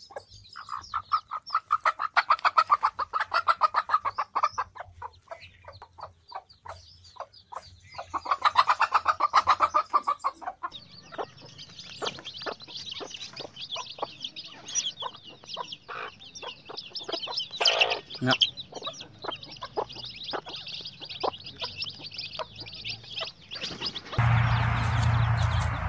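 Mother hen clucking in two fast runs of short, evenly repeated clucks, then many small chicks peeping in high, thin chirps around her. Near the end a steady hum with hiss takes over.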